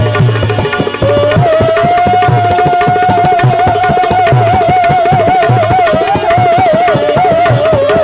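Instrumental bhajan music: a single melody line holds long, wavering notes over a steady hand-drum rhythm. The melody breaks off for about a second near the start and then resumes.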